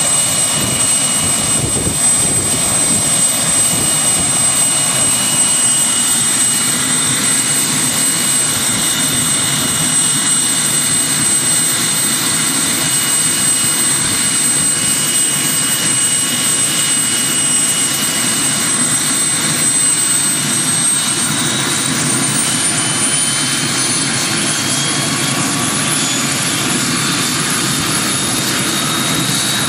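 Bell 206 JetRanger III helicopter running on the ground, its Allison 250 turboshaft giving a steady high whine over the rush of the turning rotor. About two-thirds of the way in, the whine starts to climb slowly in pitch as the engine is brought up in speed.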